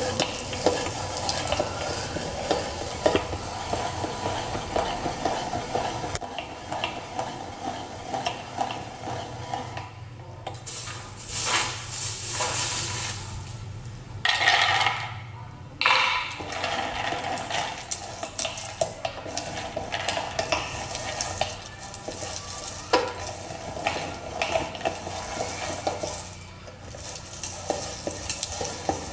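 Metal and plastic kitchen parts, likely from a manual meat grinder, clinking and scraping as they are handled. Two brief rushing noises come about halfway through.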